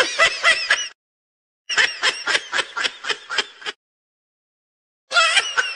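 Young tabby kitten mewing in quick, high-pitched squeaky calls, about five a second, in three bursts with short pauses between.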